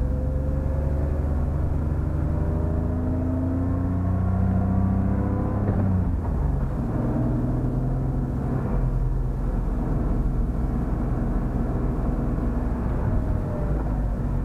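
BMW E46 328i's 2.8-litre straight-six heard from inside the cabin, pulling hard as the car accelerates, rising in pitch, with a gear change about six seconds in before it pulls again, under tyre and wind noise.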